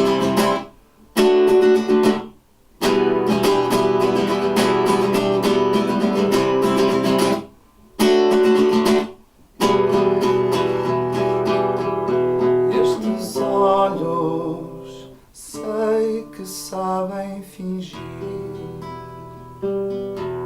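Acoustic guitar played live as an instrumental interlude: strummed chords that stop dead for a moment four times, then in the last third quieter picked single notes.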